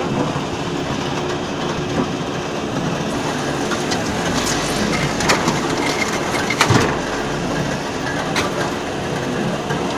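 Concrete block making machine running through a pressing cycle: a steady mechanical clatter with a few sharp knocks, the loudest about six and a half seconds in.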